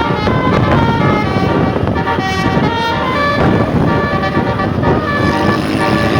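Bus telolet horn playing a quick melody of short notes that change pitch every fraction of a second, over the steady low rumble of the bus and traffic.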